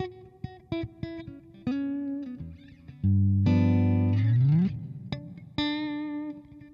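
Lyon electric guitar on its middle pickup, played through a Digitech RP55 multi-effects processor: single picked notes, then a louder chord about three seconds in with a low note sliding up in pitch, followed by more single notes.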